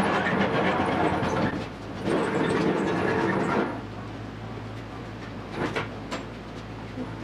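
Wheeled cart loaded with a bare car chassis frame rolling and rattling across a concrete floor, in two pushes of about a second and a half each. After that come a few light knocks over a steady low hum.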